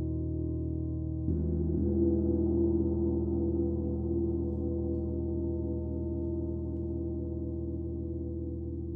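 A gong struck about a second in, over the ringing of earlier strokes; its deep tone rings on and slowly fades.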